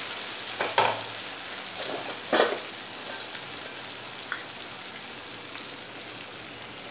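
Chopped tomatoes sizzling steadily in hot oil in a kadai, with two sharp clinks about one and two and a half seconds in.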